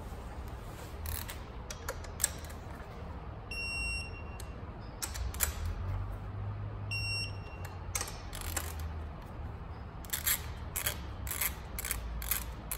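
Digital torque wrench beeping as a bolt is tightened to its set torque of 15 ft-lb: a held beep a few seconds in and a short one midway, the signal that the target torque is reached. Near the end the wrench's ratchet clicks about twice a second.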